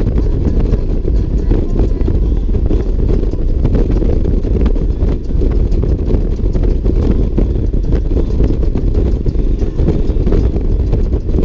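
Motorcycle at highway cruising speed: a steady low rumble of engine and wind.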